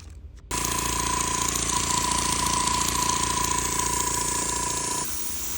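A small electric motor switches on about half a second in and runs steadily, with a high steady whine over a hum. It drops to a lower level near the end.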